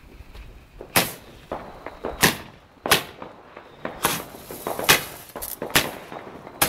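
Fireworks going off: about seven sharp bangs, unevenly spaced roughly a second apart, each with a brief echo.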